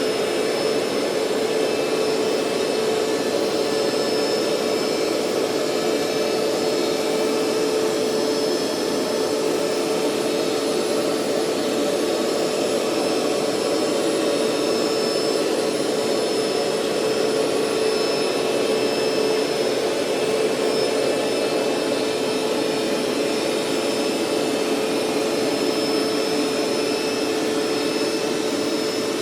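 Hoover Steamvac SpinScrub 50 carpet cleaner running steadily, its motor giving an even rushing noise with a steady hum.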